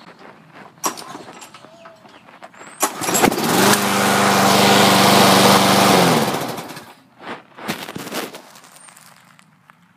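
Gasoline lawn mower engine starting about three seconds in, running loudly at a steady pitch for about three seconds, then winding down and stopping. A few sharp knocks come before and after it.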